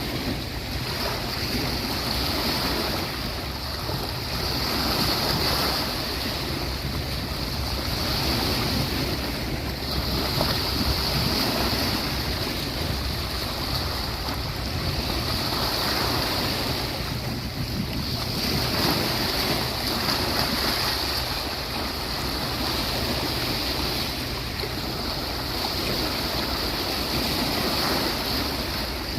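Sea waves breaking and washing onto a beach in a continuous surf, the sound swelling and easing every few seconds as each wave comes in.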